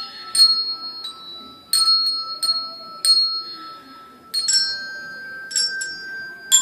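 Children's colour-coded handbells rung one note at a time as a tune: one bell is struck several times, each stroke ringing on, then a slightly higher bell takes over about four and a half seconds in.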